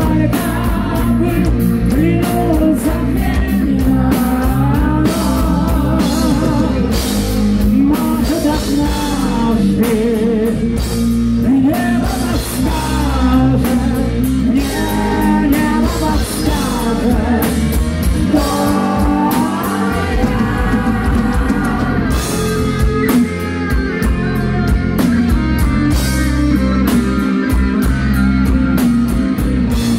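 Heavy metal band playing live: a male lead singer over distorted electric guitars, bass and a drum kit. The vocal drops out about three-quarters of the way through, leaving the band playing on.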